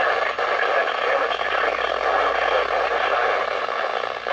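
Steady hiss of static from a radio receiver picking up a weak broadcast signal. It sounds thin and tinny, with no bass.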